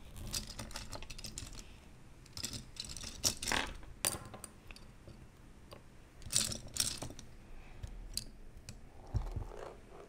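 Loose plastic pieces of a disassembled YuXin Little Magic 3x3 speed cube clicking and clattering against each other as they are sorted by hand, with louder bursts of clatter about three and seven seconds in.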